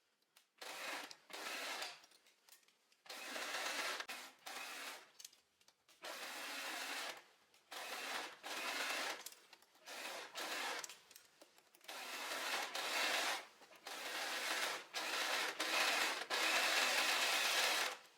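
Sewing machine stitching a neckline seam in about a dozen short runs, stopping and starting every second or so, with a longer run of about three seconds near the end.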